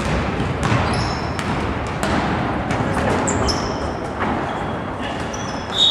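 Basketball game on an indoor court: the ball bouncing irregularly and sneakers squeaking on the floor in short high squeals, one louder squeal near the end, over the echoing hum of the hall.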